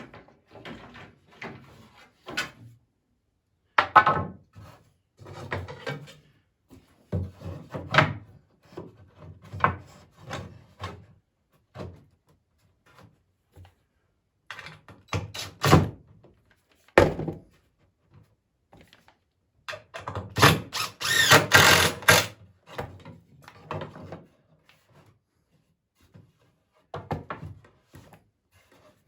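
Poplar boards being handled and fitted together, with scattered wooden thunks and knocks and, about twenty seconds in, a louder, denser burst of clatter lasting about two seconds.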